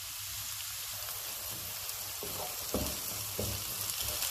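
Chopped onion sizzling steadily in hot oil in a nonstick frying pan, still softening and not yet golden. From about halfway in, a wooden spatula stirs it with a few short scraping strokes.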